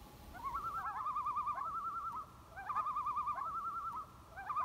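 Common loon tremolo calls: a rapid, wavering laugh, repeated in three bouts about a second or more long, each opened by a few short rising notes, the last bout starting near the end.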